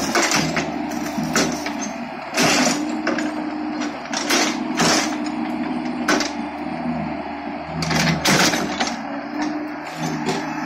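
Hitachi mini excavator's diesel engine running, its pitch rising and falling as the hydraulics work, with several sharp knocks and thuds as the bucket dumps cattle manure into the trailer.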